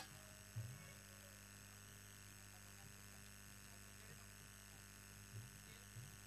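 Near silence with a steady low electrical mains hum, and a couple of faint low thumps.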